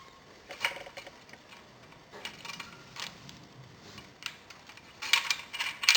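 Light metallic clicks and clinks as a steel torque plate is slid up the hub motor's cable and onto the rear axle, scattered at first, then a quick cluster of clicks near the end.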